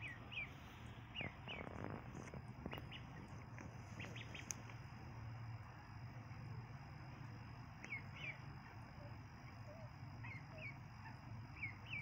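Ducklings peeping: short, falling peeps scattered through, over a low steady hum, with a few light clicks in the first few seconds.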